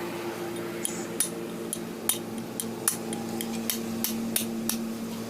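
Repeated sharp metal-on-metal taps, about a dozen at roughly two to three a second, as tools strike metal parts during a truck differential rebuild, over a steady hum.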